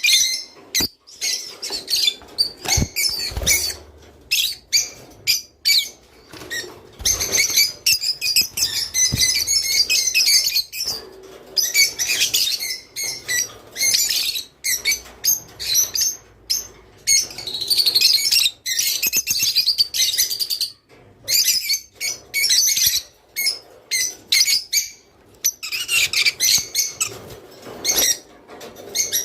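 Rosy-faced lovebirds chattering: fast, high-pitched chirps in dense bursts with short breaks, and a few low thumps in the first few seconds.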